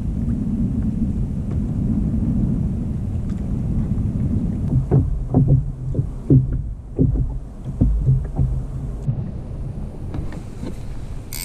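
Wind rumbling on the microphone over water on a plastic kayak, then a run of irregular knocks and bumps from about four to nine seconds in, as the paddler shifts about in the kayak.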